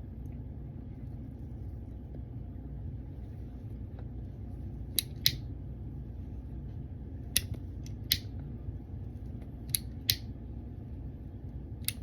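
Comoy of London pipe lighter clicking as it is worked to light a pipe: sharp, short clicks, mostly in pairs a fraction of a second apart, over a steady low background hum.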